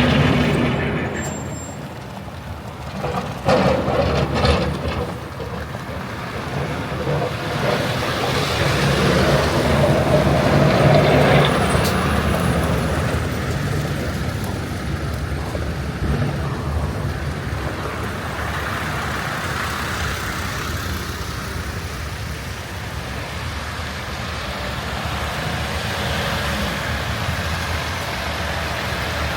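City street traffic in snow: heavy vehicles such as trucks and buses running past, with a short cluster of sharp knocks about three seconds in.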